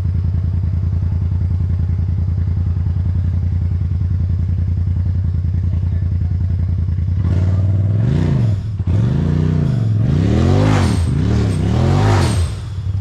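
A vehicle engine running steadily, then from about halfway through revving up and down four or five times in quick succession.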